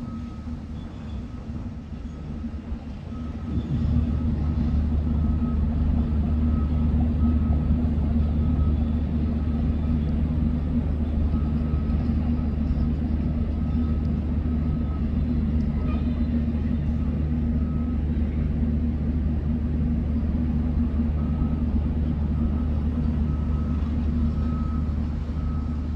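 A heavy diesel engine running steadily, getting louder about three and a half seconds in, with a faint beep repeating in short, even pulses over it.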